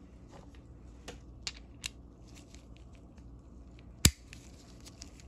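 Small ratchet parts (the gear and drive with its ball detent) handled in gloved fingers: faint rustling and a few light clicks, with one sharp click about four seconds in.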